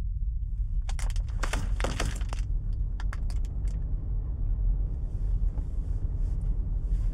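Steady low road rumble inside a moving car's cabin, with a cluster of sharp light clicks about a second in and a few more around three seconds.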